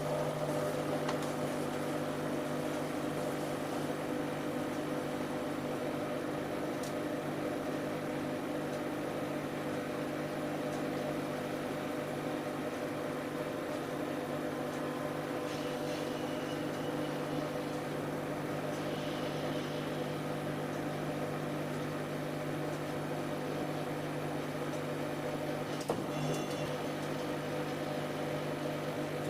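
Siemens Siwamat 7163 iQ-series washing machine running with a steady motor hum. There is a brief knock about 26 seconds in.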